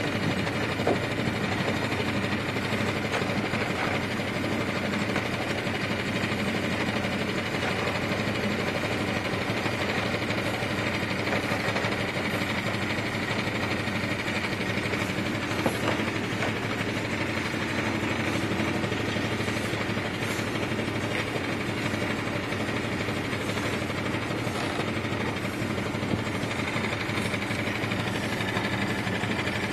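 A boat's engine running steadily, its pitch unchanging throughout.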